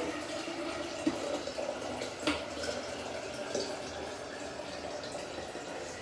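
Water running steadily from a kitchen tap, with a few light knocks in between.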